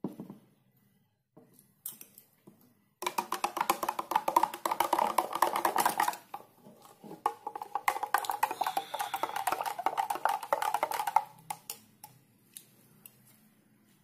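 A spoon stirring milk into watermelon juice in a blender cup, clinking rapidly against the cup's sides with a light ringing tone. It comes in two spells, from about 3 to 6 seconds in and again from about 7 to 11, after a few light knocks at the start.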